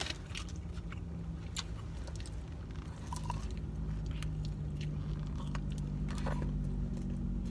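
Close-up chewing and biting of camel meat and rice, with small wet mouth clicks. A steady low hum sits underneath and grows slightly louder about halfway through.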